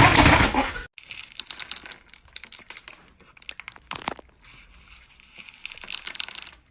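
A loud, dense noise that cuts off suddenly about a second in, followed by quieter crinkling and clicking rustles, like paper or plastic being handled, with one louder rustle about four seconds in.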